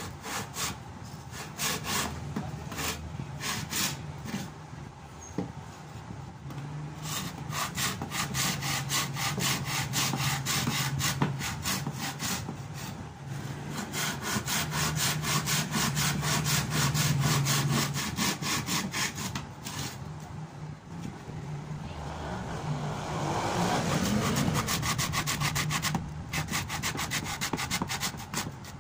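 Hand saw blade sawing back and forth through the wooden handle of a cricket bat at its shoulder, in quick even strokes, about three or four a second, with a few short pauses. About two-thirds of the way through, a rushing noise swells and fades under the sawing.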